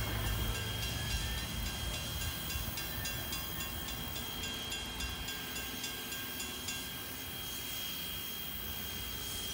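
Canadian National 89, a 2-6-0 steam locomotive, working a passenger train: an even, rapid beat of exhaust chuffs over a low rumble, slowly getting quieter.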